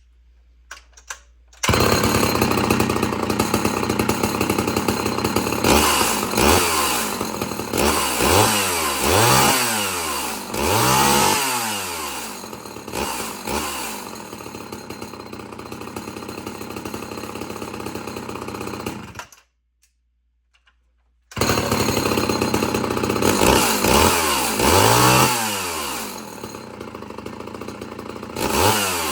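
Two-stroke gas chainsaw running and being revved up and down again and again. It starts about two seconds in, drops out for about two seconds past the middle, then runs and revs again.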